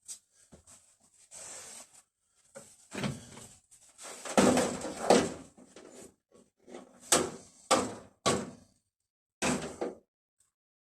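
Irregular clunks, knocks and short scrapes of metal parts and tools being handled while a washing machine is being dismantled. The loudest clatter comes a little after the middle, followed by a few sharp single knocks.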